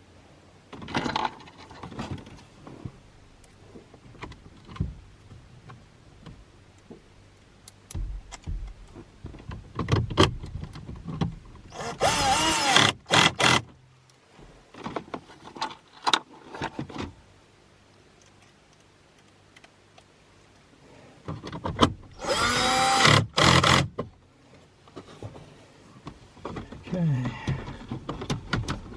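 Power drill driving screws in two short runs, about twelve seconds in and again about twenty-two seconds in, its motor whine wavering in pitch under load. Scattered clicks and knocks of parts being handled in between.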